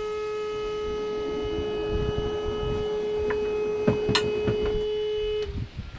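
A steady hum held on one pitch with overtones, cutting off suddenly near the end, with a few light knocks about three to four seconds in.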